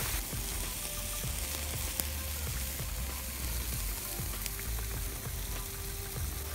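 Campfire hissing and sizzling with scattered small crackles, with dough bread cooking on the grill over it.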